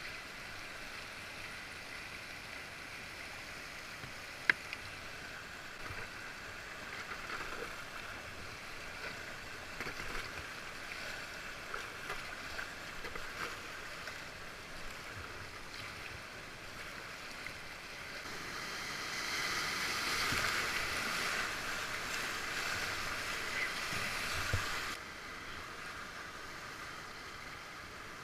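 River water rushing and splashing around a whitewater kayak, with a sharp click a few seconds in. The water gets louder for several seconds about two-thirds of the way through, then drops off abruptly.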